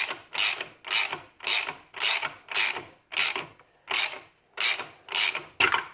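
Hand ratchet clicking in quick back-and-forth strokes, about two a second, as the rear pulley nut is backed off. The strokes end with a quick double burst just before the end, when the nut comes free.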